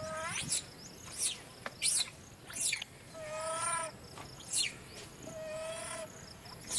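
A young long-tailed macaque calling with two drawn-out, wavering whimpering coos about 3 and 5 seconds in, the begging call of a baby wanting to nurse. Between the coos come short shrill squeaks that drop steeply in pitch, the first ones coming about every 0.7 s.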